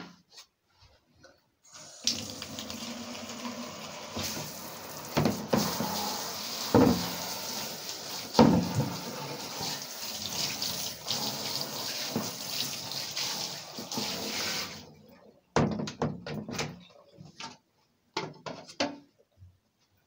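Water from a bathtub hand shower spraying onto laminate floor boards in the tub as a steady rush for about thirteen seconds, then shut off. A few short knocks follow as the wet boards are handled in the tub.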